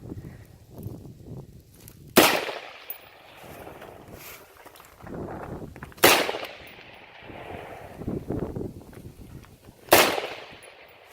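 AR-15 rifle firing three single shots about four seconds apart, each sharp crack trailing off in echo.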